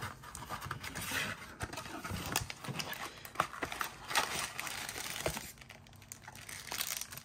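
Cardboard flaps of a Topps baseball card box being torn open and the stack of wrapped card packs slid out, with rustling, crinkling and a string of irregular small clicks from handling.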